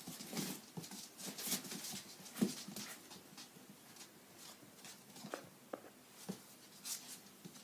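Golden retriever puppies, nearly five weeks old, wrestling on a hard vinyl floor: irregular scuffling and clicking of paws and claws, busiest in the first few seconds, with a few brief puppy squeaks in the second half.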